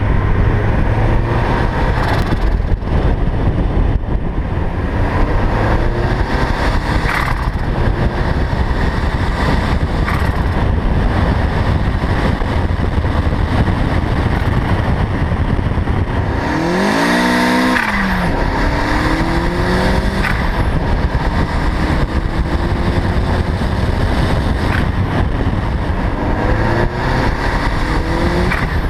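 Turbocharged 1.8-litre Mazda Miata inline-four pulling hard through several rising revs, with a shift break about two-thirds of the way through. With its blow-off valve disconnected, the turbo flutters on throttle lift as boost surges back through the compressor.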